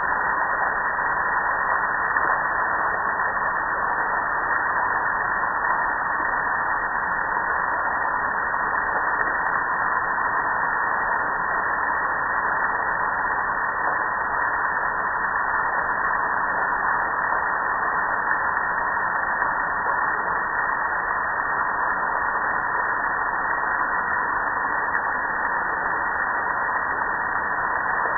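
Steady rush of soapy water pouring and splashing over a gas grill's metal lid and front panel.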